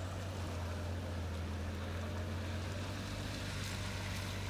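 A vehicle engine running steadily at low speed: an even, low hum under a light hiss.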